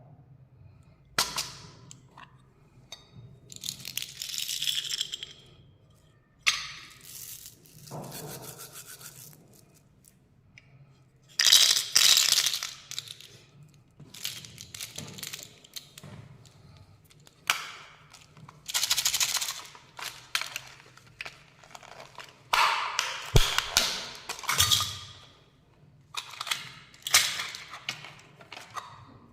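A Kinder Joy egg's foil wrapper and plastic packaging being crinkled and torn open by hand. The rustling comes in repeated bursts of one to two seconds, with sharp clicks and taps between them.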